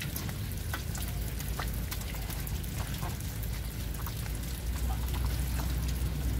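Wet patter and dripping from plastic crates of freshly harvested live patin catfish, with scattered small wet slaps and clicks. A low rumble runs underneath and grows louder near the end.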